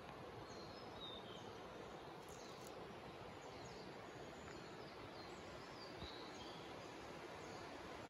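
Mountain forest ambience: a steady soft hiss with many short, high bird chirps scattered through it.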